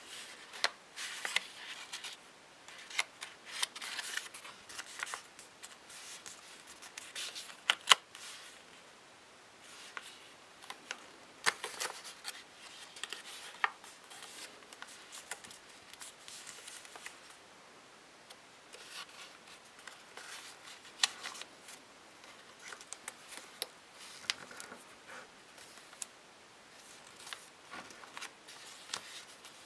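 Small square sheet of paper being folded and creased by hand: crisp rustling with sharp creasing clicks at irregular intervals, the loudest snap about eight seconds in.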